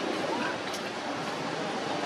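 Steady outdoor background noise, an even hiss like wind or distant surf, with a faint click about three-quarters of a second in.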